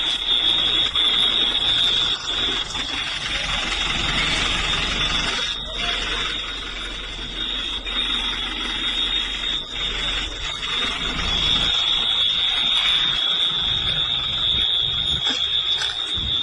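A steady, unbroken high-pitched alarm tone over constant background noise.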